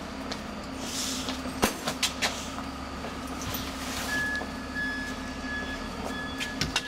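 Steady low hum of an idling vehicle engine, with a few sharp knocks and clatters in the first half. From about four seconds in there is a high, on-off beeping.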